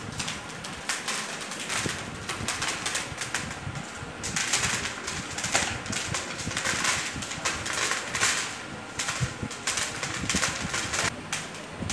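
Dried maize cobs shelled by hand, the kernels rattling and pattering into a plastic tub in a dense, irregular patter of small clicks over a dry rasping rub.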